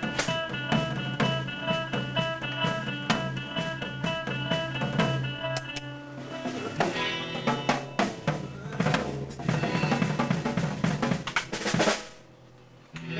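A rock band playing live, with guitar and drum kit: guitar and drums play a repeating riff together, then about halfway through the drums take over with busy hits. Near the end the playing stops abruptly.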